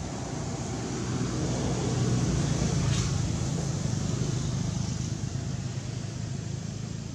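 A motor vehicle's engine passing: a steady low hum that grows louder over the first two or three seconds and then slowly fades.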